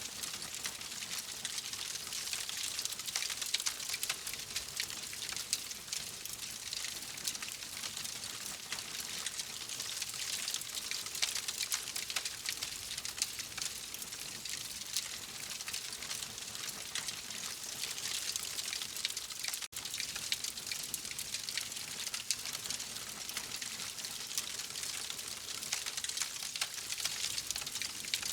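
Wood fire crackling steadily: dense small pops and snaps over a soft hiss, with a momentary dropout about two-thirds through.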